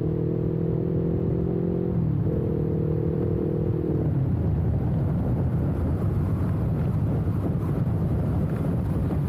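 Kawasaki Ninja 400 parallel-twin engine running at steady revs, its note dipping briefly about two seconds in. From about halfway the engine note fades under a steady low rumble of wind buffeting the camera's built-in microphone.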